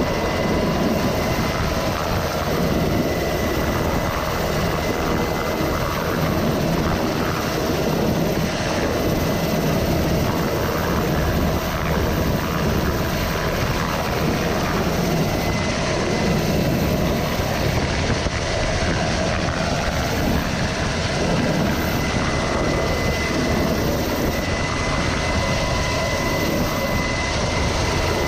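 Helicopter's turbine engines and rotor running steadily while hovering, a dense, loud noise with a steady high whine.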